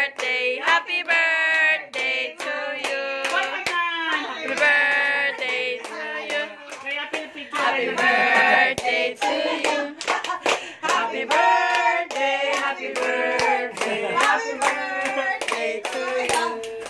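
Voices singing a song with rhythmic handclaps keeping time.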